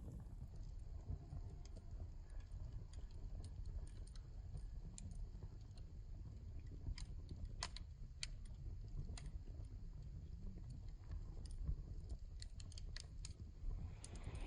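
Campfire wood crackling: scattered sharp pops at irregular intervals, over a steady low rumble.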